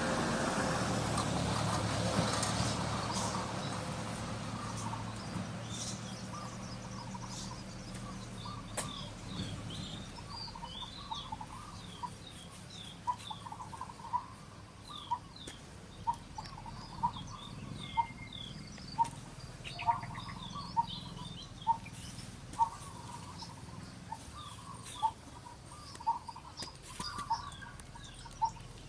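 Birds chirping: one bird repeats a short call about once a second, with quicker, higher chirps from other birds over it. A low rumble fades away over the first several seconds.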